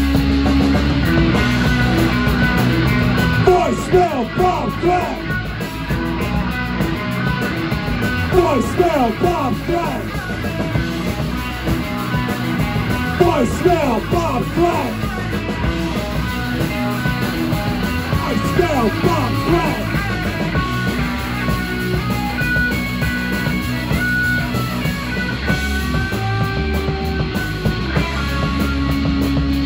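Live punk/noise rock band playing loudly on distorted electric guitars and drums, with a heavy low end. From about four seconds in until about twenty seconds in, the guitar notes slide and bend up and down in pitch.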